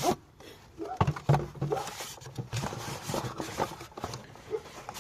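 Irregular clicks, knocks and light scraping of engine parts being handled during work on an ignition coil, with a couple of sharper knocks about a second in.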